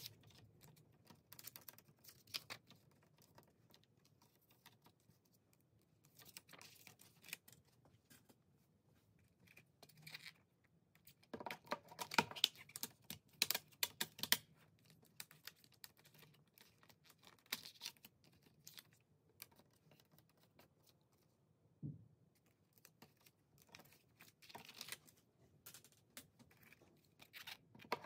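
Plastic CD jewel cases being handled: faint, irregular clicks and taps as the cases are opened, the discs lifted off their hubs and the inserts pulled out. A quick flurry of clicking comes about 11 to 15 seconds in, and a single soft knock comes later.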